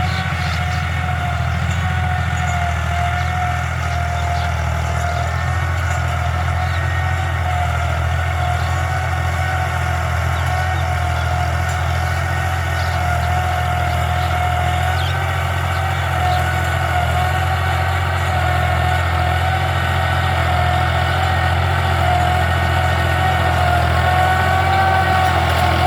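Tractor engine running steadily while ploughing: a low drone with a steady whine above it, growing slightly louder near the end.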